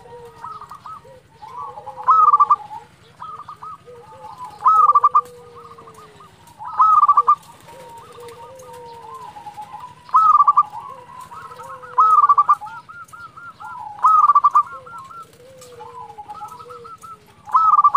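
Zebra dove (perkutut) in full song: a loud, rippling cooing phrase repeated about every two to three seconds, seven times, with fainter coos between phrases.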